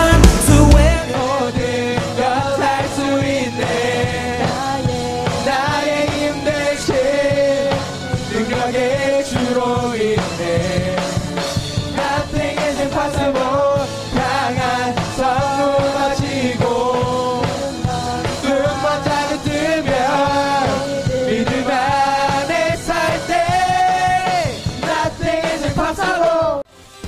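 A song with a sung melody over rock-band accompaniment. It is loudest in the first second and cuts off suddenly just before the end.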